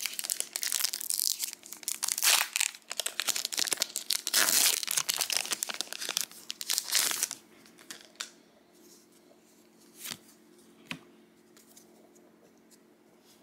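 A foil trading-card booster pack wrapper being torn open and crinkled, a dense crackling that lasts about seven seconds. After that it goes much quieter, with a few soft clicks as the cards are handled.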